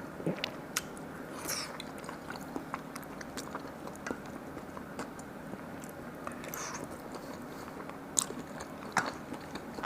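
A person eating close to the microphone: steady chewing with scattered sharp bites and a few short crunches, over a faint steady hum.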